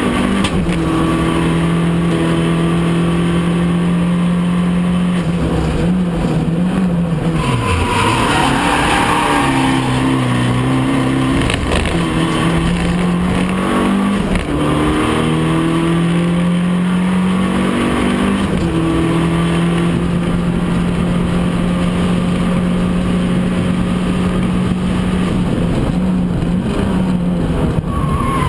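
Abarth 500 race car's turbocharged four-cylinder engine heard from inside the stripped cabin at racing speed, mostly held at steady high revs. The pitch drops sharply about seven and fourteen seconds in, as the car brakes and downshifts for corners, then climbs again through the gears.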